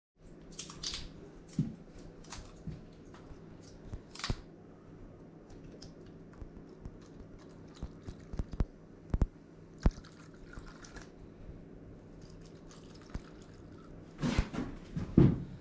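Scattered clicks and knocks with a few short hissing bursts, the loudest cluster near the end: things being handled at close range.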